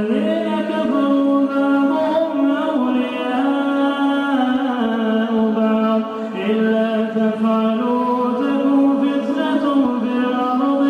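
A male voice reciting the Quran in melodic tajweed style, holding long drawn-out notes that step up and down in pitch.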